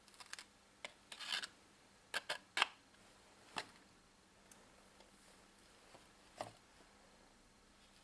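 A sanding belt handled with gloved hands: a few faint rustles, scrapes and light taps, the loudest between about one and three seconds in, and one more near six and a half seconds.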